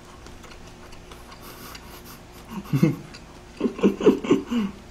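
A man chuckling with his mouth full of ramen noodles: one short muffled hum about halfway through, then a quick run of short voiced bursts near the end.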